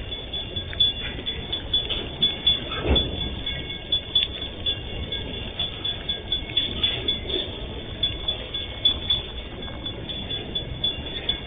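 Freight train of open-top gondola wagons rolling slowly past, with repeated clanks and knocks from wheels and couplings and a thin high metallic ringing. A heavier clunk comes about three seconds in.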